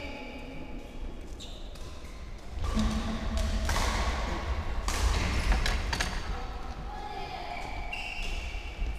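Badminton rackets striking shuttlecocks, several sharp hits clustered about three to six seconds in, with short high shoe squeaks on the court floor near the start and again near the end.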